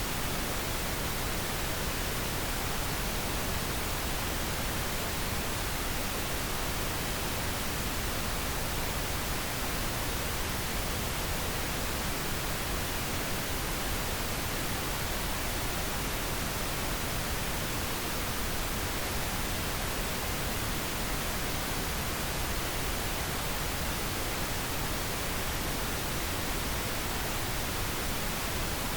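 Steady, unchanging pink noise, an even hiss played as a sleep aid for babies.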